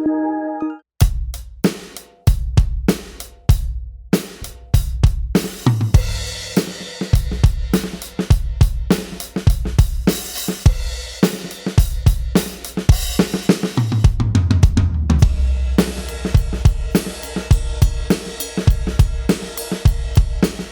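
Roland TD-316 electronic drum kit played through its V31 module: a few single kick, snare and tom hits, then from about six seconds in a continuous beat with cymbals and hi-hat and a tom fill. A piece of background music ends about a second in, just before the first hit.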